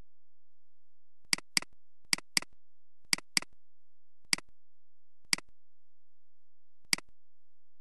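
Computer mouse button clicking: three quick pairs of clicks, then three single clicks about a second apart.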